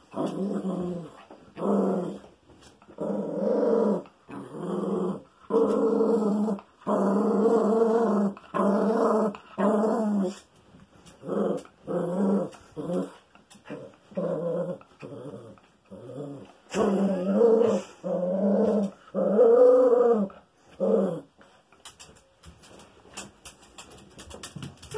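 Small dog growling in a long series of short bursts, about one a second, while being rubbed with a towel; the growls stop near the end.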